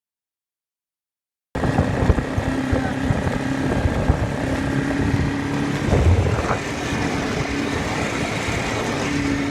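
After about a second and a half of silence, a motorcycle engine cuts in suddenly and runs at a steady pitch.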